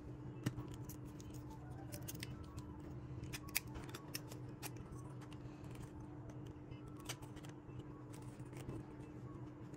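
Scattered sharp plastic clicks and scrapes as a lightstick's handle and black end cap are handled and fitted together, over a steady low hum.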